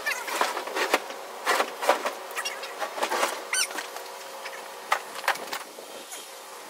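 A few irregular metal clanks and knocks as a mesh-decked metal rack is lifted off a jon boat.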